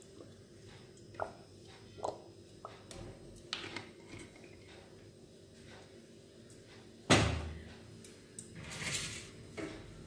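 Aluminium kadai being handled on a gas stove: a few light clicks, then one loud metal knock about seven seconds in, followed by a brief hiss.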